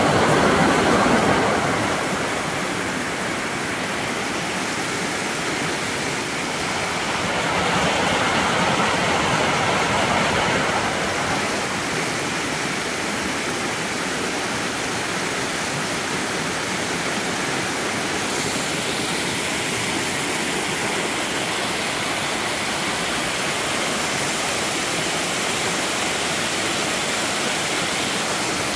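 Waterfall: water pouring over rocks in a steady rush of noise, a little louder for a few seconds about a quarter of the way in.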